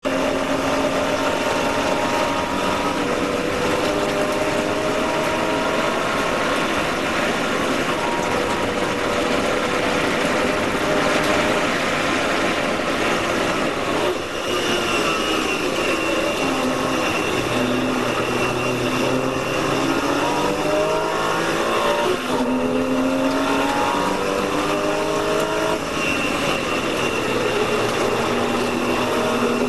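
Porsche race car engine heard from inside the cabin, running hard on a racing lap: its pitch climbs under acceleration and drops through braking and downshifts several times, over constant wind and tyre noise.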